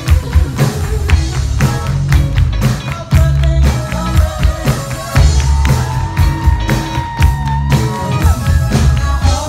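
Live rock band playing loud: electric guitar, drums and keyboards with a heavy, pulsing bass under a female singer. A long note is held for about three seconds past the middle.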